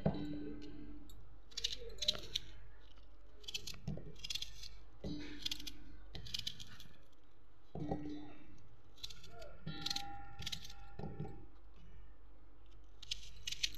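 Onions being cut roughly with a serrated knife over a stainless-steel mixer-grinder jar: crunching slices through the onion, and chunks dropping into the steel jar with knocks that ring briefly, at irregular intervals.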